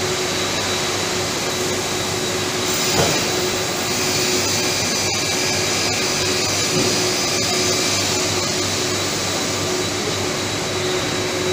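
Plastic panel film-laminating machine running: a steady whir with a constant hum, and a brief knock about three seconds in.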